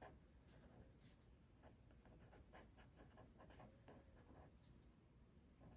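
Faint scratching of handwriting as notes are written out, a run of short, irregular strokes.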